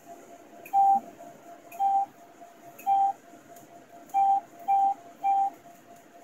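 Palomar StarLux 500 laser system beeping: six short mid-pitched beeps, the first three about a second apart and the last three quicker, about half a second apart. A faint steady tone runs beneath.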